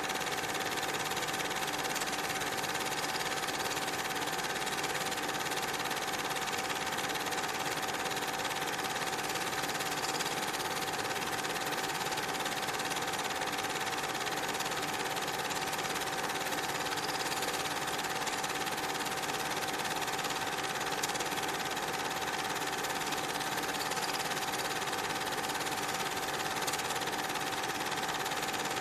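Cine film projector running: a steady mechanical whirr with a constant mid-pitched hum, unchanged through the whole stretch.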